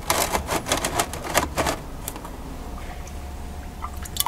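Rapid clattering and knocking of a plastic canister being shifted and tilted on the floor under a draining transmission, a quick run of sharp knocks lasting about a second and a half, then one more click near the end.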